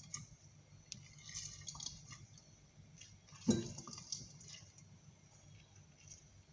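Half an orange squeezed by hand over a glass jar: faint squishing of the fruit and juice dripping into the jar, with one louder short thump about three and a half seconds in.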